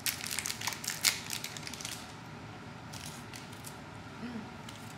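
Crinkly gum packaging being handled: a cluster of sharp crackles and clicks in the first second or so, then a few sparse ones about three seconds in and near the end.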